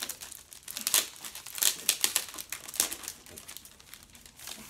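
Crinkling and rustling of a vinyl record's packaging as it is handled and its contents are pulled out: a string of irregular crackles, with louder crinkles scattered through.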